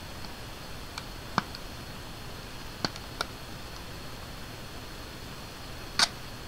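Fingernails picking and prying at a small cosmetics package, giving a handful of sharp clicks and crackles: a pair about a second in, another pair around three seconds, and the loudest one near the end. A steady faint hiss sits underneath.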